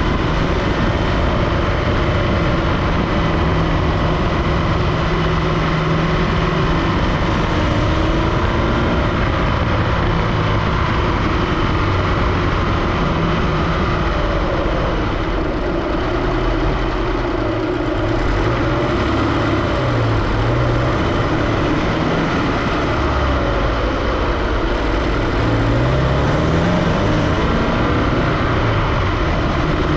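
Supercharged Scion FR-S flat-four engine running, heard at the engine bay, with tones that waver up and down in pitch and one brief rise near the end. The owner is chasing an unexplained noise from the engine bay that comes with load.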